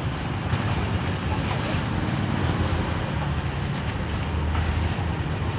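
Steady street noise of a busy open-air market: a low traffic rumble with faint scattered clatter.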